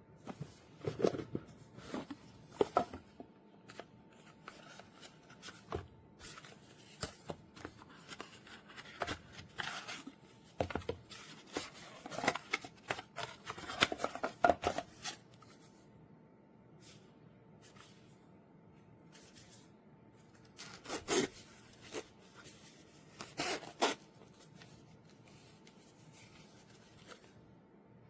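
Handling noise close to a microphone: rustling, rubbing and clicking in clusters separated by quiet gaps, over a faint steady hum.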